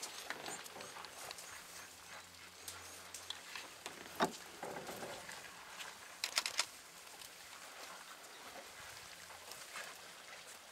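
Quiet outdoor ambience with faint scattered clicks and rustles. There is a sharper crack about four seconds in and a quick run of clicks at about six and a half seconds.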